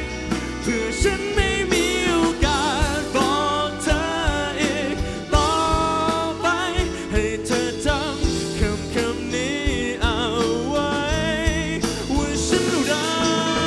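Live pop ballad: a male singer holding long, wavering notes that bend up and down, over full band accompaniment with a steady beat.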